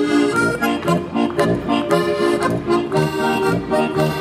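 Accordion-led traditional German folk dance music with a steady beat.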